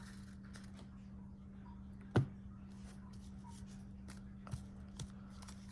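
Quiet handling of baseball cards: a sharp tap about two seconds in, then two lighter ticks near the end, over a steady low hum.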